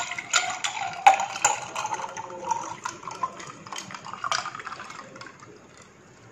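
Chilled jamun juice pouring from a glass jug into a drinking glass, splashing as the glass fills, with sharp clinks of ice cubes. The pour tapers off about five seconds in.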